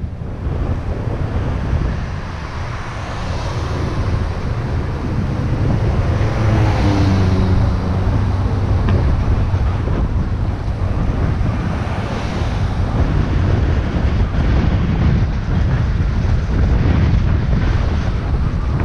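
Wind buffeting the microphone, a steady loud low rumble. About seven seconds in, an engine's hum rises briefly above it.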